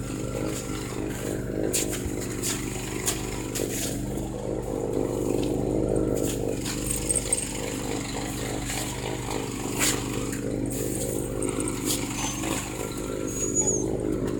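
Snowblower engine running steadily, with a few sharp clicks over it.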